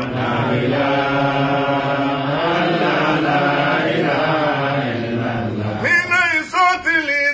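Men chanting a zikr together, a long drawn-out phrase sung in unison. About six seconds in, a single man's voice takes over alone with a bending, wavering line, leading the next part.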